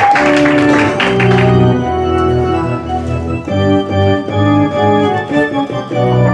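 Live keyboard music with an organ-like tone, playing held chords under a slow melody. A noisy wash fades out in the first second and a half.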